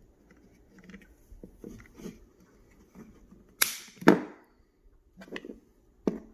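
Hands working a Glock 22 Gen 3 pistol's polymer frame while a friction-fit grip insert plug is pushed into the frame's rear cavity: light rustling and taps, then two sharp plastic clicks about half a second apart in the middle, and two lighter clicks near the end.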